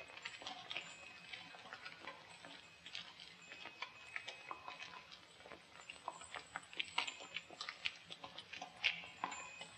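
Many footsteps of a slow procession on a stone floor: a loose, irregular patter of taps and clicks, with a few brief thin high tones among them.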